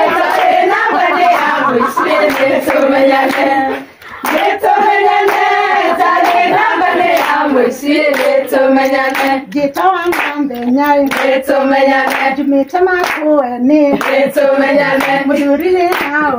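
A group of women singing together while clapping their hands in rhythm, with a brief break in the song about four seconds in.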